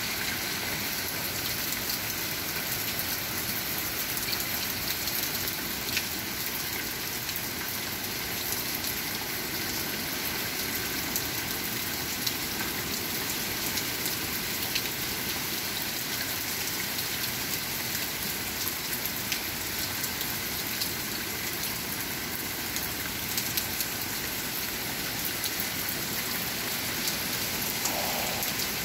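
Hurricane rain falling steadily, with frequent sharp ticks of drops striking nearby surfaces.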